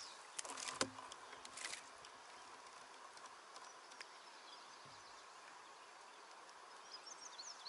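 A few short water splashes in the first two seconds, then quiet river ambience: a steady faint hiss, with a few faint high chirps near the end.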